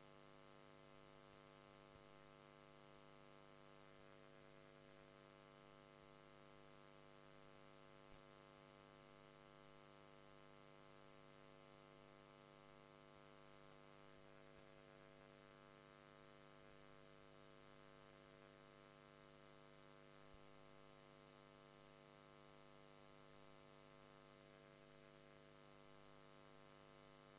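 Near silence: a faint, steady electrical mains hum with hiss, the recording's noise floor.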